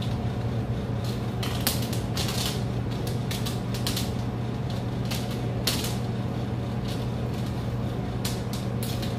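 Irregular small clicks and ticks of stiff steel piano wire being twisted by hand into a leader, over a steady low hum.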